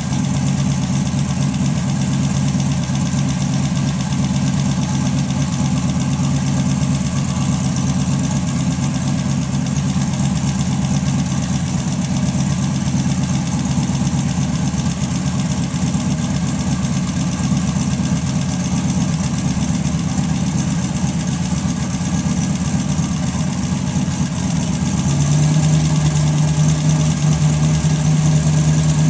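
320 cubic-inch Buick straight-eight engine idling steadily. About 25 seconds in, the idle steps up to a slightly higher, louder speed.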